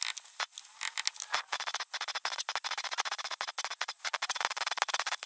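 MIG welding arc crackling as a steel repair piece is welded into a car's rusted door pillar. It sputters in short bursts at first, then runs as a fast, steady crackle from about a second and a half in.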